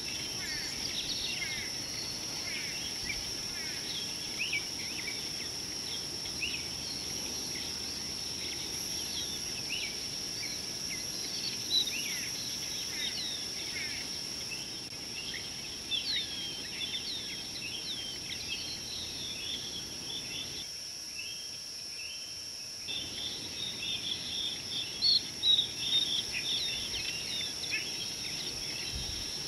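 Many small birds chirping and twittering over a steady high-pitched insect drone. The lower background briefly drops away about three-quarters of the way through, and a few louder chirps come near the end.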